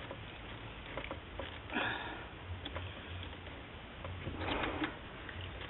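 Plastic wiring-harness connectors at the back of a car radio being worked loose by hand: small clicks and two short rustling scrapes, one about two seconds in and one near the end, over a low steady hum.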